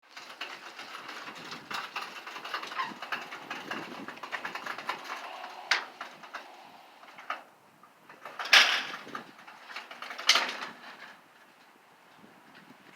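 Mechanical rattling and clicking for about five seconds, then three separate loud knocks, the second the loudest.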